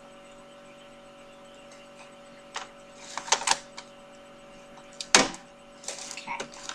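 Small hard plastic items and a toy diary being handled on a desk: scattered clicks and knocks starting about two and a half seconds in, the loudest a knock just after five seconds, over a steady electrical hum.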